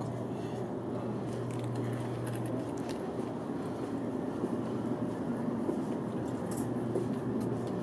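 Steady cabin noise inside a Taiwan High Speed Rail car, with a low hum that stops about two and a half seconds in and a few faint clicks.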